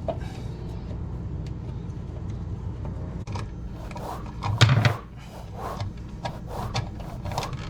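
Flathead screwdriver working a kitchen GFCI outlet's cover plate and long mounting screws loose: small scrapes and clicks, with one sharp knock about halfway through, over a steady low hum.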